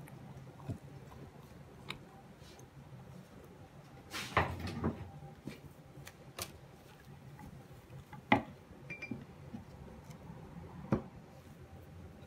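Kitchen handling sounds: a handful of separate sharp clicks and knocks as a spoon, a ceramic mixing bowl and a roll of cling film are handled and set down on a table, the loudest about eight seconds in. A short rustling cluster around four seconds in as cling film is pulled from the roll.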